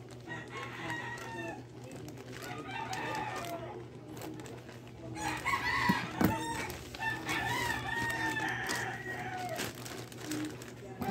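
Rooster crowing several times, the longest crow held for about two seconds near the end, over scissors snipping and a plastic mailer bag rustling, with a sharp snip about six seconds in.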